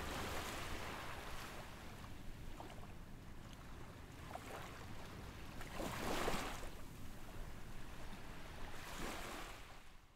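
Open-sea ambience: waves washing with wind noise, with louder swells of water about six and nine seconds in, cutting off suddenly at the end.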